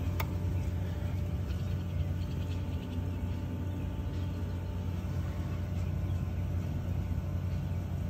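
Steady low hum of running pool equipment machinery, with a single sharp click about a quarter second in.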